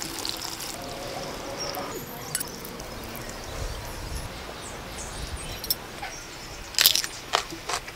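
Steady outdoor ambience with faint bird calls. A few light clicks come through, and there is a cluster of sharper, louder clicks near the end.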